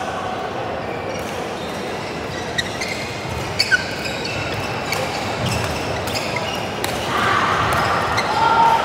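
Badminton rally: sharp cracks of rackets striking the shuttlecock, the loudest two in quick succession about three and a half seconds in, with short squeaks of shoes on the court floor, over a steady hubbub of a large sports hall.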